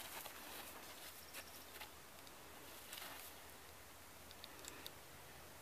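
Faint scattered crunches and rustles from a grulla colt nosing and nibbling at hay on sandy ground, with a few light ticks near the end.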